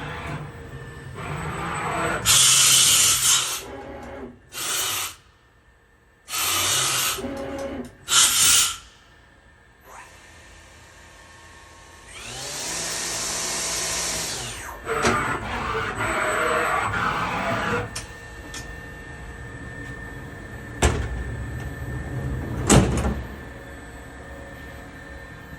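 Fanuc Robodrill A-T14iD CNC drill-tap center running through a cycle. Several loud hissing bursts come in the first nine seconds. About twelve seconds in, the spindle's pitch rises, holds and falls back, and two sharp clunks follow near the end.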